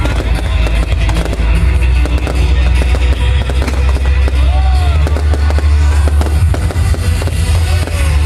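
Fireworks bursting with many sharp bangs in quick succession, over loud music with heavy bass.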